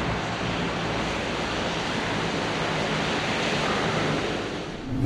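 Steady rushing noise, even across high and low pitches, with a sudden loud whoosh right at the end.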